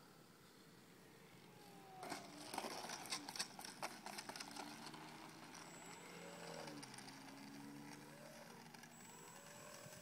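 Radio-controlled Piper Cub model plane touching down on asphalt about two seconds in, its wheels clattering and rattling over the rough surface. The plane then taxis with its small motor running softly, its pitch rising and falling as the throttle is worked.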